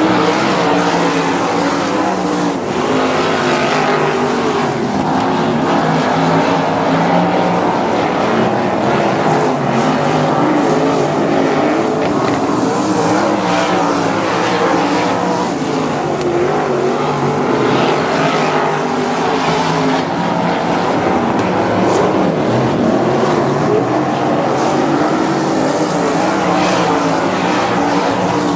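A field of 305 winged sprint cars racing on a dirt oval: several engines at full song, their pitches rising and falling together as the cars lap the track.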